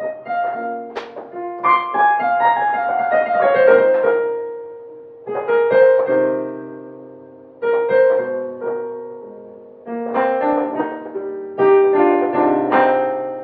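Slow solo piano music played on a digital piano: chords and runs of notes struck about every two to three seconds, each phrase ringing on and fading before the next.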